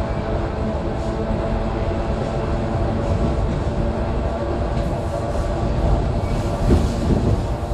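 ER2 electric multiple unit heard from inside the carriage while running: a steady rumble of wheels on rails with a constant hum. There are a couple of heavier knocks near the end.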